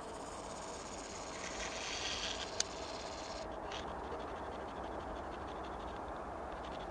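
Steady outdoor background noise with no clear single source, a hissy swell around two seconds in, and one sharp click just after.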